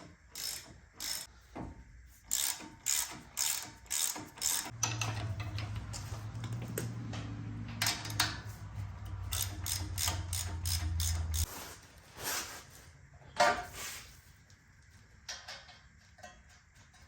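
Hand socket ratchet clicking in quick, even strokes as a nut is run down, with a steady low hum for several seconds in the middle and a few sharper metal knocks later.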